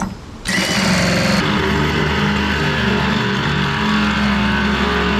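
Power drill driving a hole saw into a fiberglass boat deck. The motor starts about half a second in and runs steadily under load with a grinding cut.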